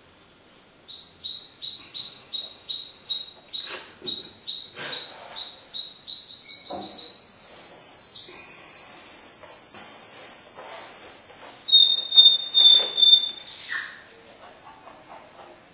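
A songbird singing: from about a second in, high clear repeated notes at about three a second, then a long rapid trill, a falling run of quick notes and a few lower notes, ending with a short harsh burst.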